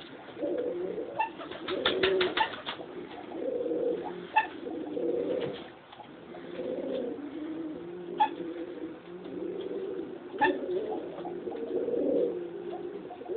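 Pet pigeon cooing in low rolling phrases, broken several times by short sharp hiccups that sound like a small dog barking, with a quick flurry of them about two seconds in.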